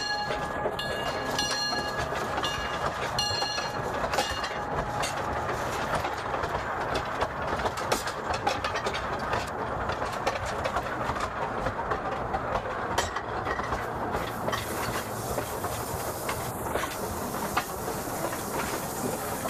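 Steam whistle of a Porter 0-4-0 steam locomotive sounding in several short blasts during the first few seconds, heard from inside the cab. It is followed by the locomotive running along the track with a steady rumble and a clatter of wheels on rail.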